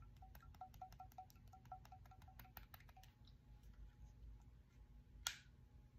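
Faint rapid ticking from a small handheld gadget, about six ticks a second, each with a small ringing tone. It stops about halfway through, and one sharper click comes near the end.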